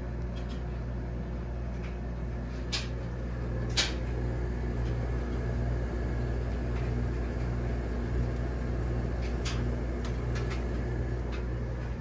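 Friedrich window air conditioner running with a steady low hum and blower noise, with a few sharp clicks along the way.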